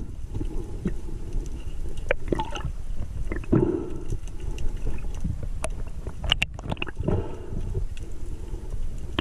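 Underwater sound picked up by a camera in its waterproof housing: a steady low rumble of moving water, with a couple of whooshing swells and a few sharp clicks.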